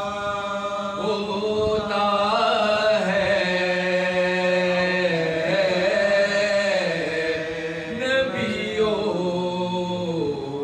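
Male voices chanting an Urdu salaam in soz khwani style, with no instruments. A lead voice sings a winding, gliding melody while the others hold a steady low note beneath it.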